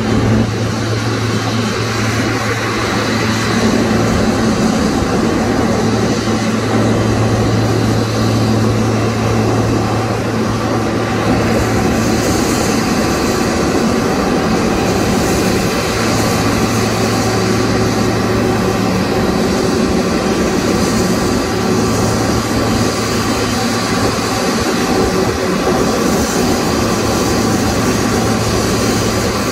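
Boeing 777-300's twin jet engines running steadily at taxi power as the airliner rolls in toward its stand: a loud, even jet noise with a low hum beneath it.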